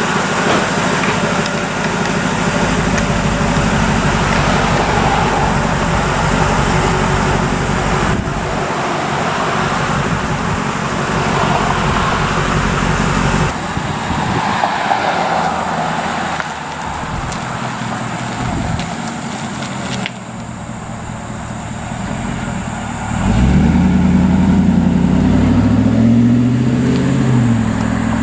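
2002 Ford SVT Lightning's supercharged 5.4-litre V8 running, then revved up and down several times in the last few seconds.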